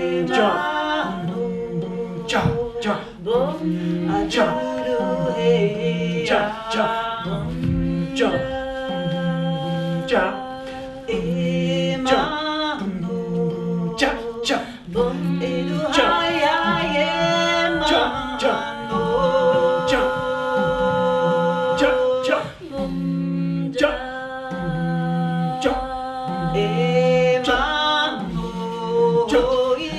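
Improvised a cappella singing by several voices: a low sung note repeats in short held pulses under sustained higher vocal lines. Sharp percussive knocks and clicks break in throughout.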